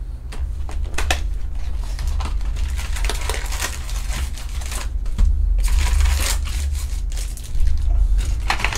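Trading-card packs in foil wrappers crinkling and clicking against each other as they are handled and laid out in piles from an open hobby box. A steady low hum runs underneath.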